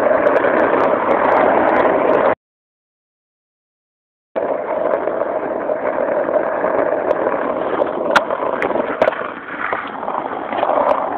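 Skateboard wheels rolling fast on asphalt, a steady rushing roar. The sound drops out to total silence for about two seconds, a little over two seconds in, and a few sharp clicks come near the end.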